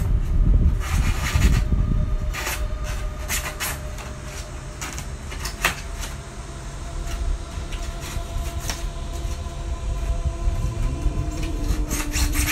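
Box cutter blade sawing through the wall of a styrofoam cooler: scratchy rubbing and creaking strokes, heaviest in the first couple of seconds.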